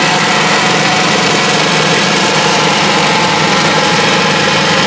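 Electric blender motor running steadily, a loud, even whir as it mixes an iced cappuccino drink.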